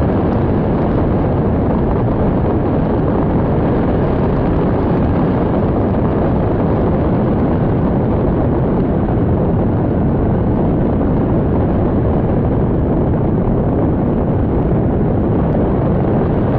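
Strong storm wind blowing on the microphone, a loud steady rush with no let-up.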